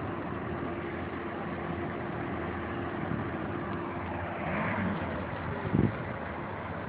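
Lamborghini supercar engines running at low revs close by, a steady drone, with a short loud thump about six seconds in.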